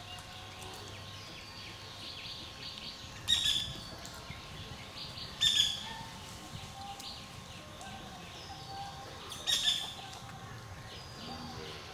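Birds chirping in the background, with three loud, short, shrill calls standing out, the last a few seconds after the first two.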